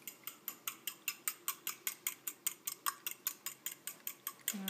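A fork beating raw eggs in a white ceramic bowl, its tines clicking against the side of the bowl in a steady rhythm of about six strokes a second.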